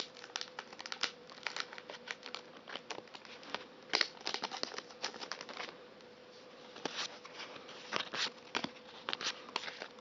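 A Japanese Pokémon trading-card booster pack's foil wrapper being torn open and crinkled, with irregular crackles as the pack is handled and the cards come out. A faint steady hum runs underneath.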